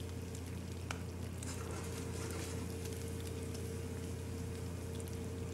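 Quiet room tone: a steady soft hiss over a low hum, with one faint click about a second in.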